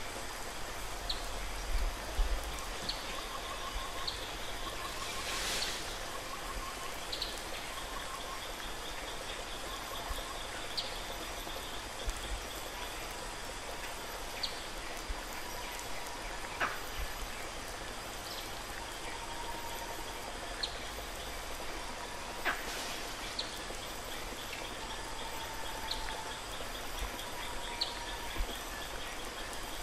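Steady background hiss of indoor ambience, with short high-pitched chirps every couple of seconds, two stretches of a fast high trill and a few softer lower whistles. There are two sharp clicks, one about halfway through and another a few seconds later.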